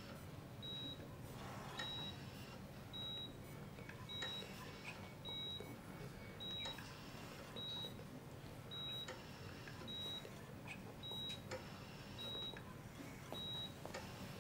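Bedside patient monitor giving its pulse beep, a short high tone about once a second, over quiet hospital room hum.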